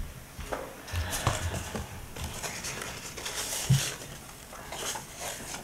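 Soft handling noises in a small room: scattered light knocks and rustles, with a sharper knock a little before four seconds in.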